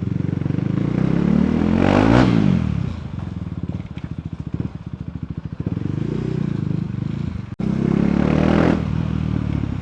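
KTM Duke 390's single-cylinder engine through its stock exhaust, revving up about two seconds in and falling back, with irregular pops and crackles on the overrun. It revs up again near the end.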